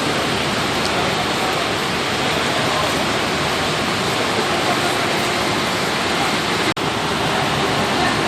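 Fire hose jet spraying water, a steady loud rushing with a brief break about two-thirds of the way through.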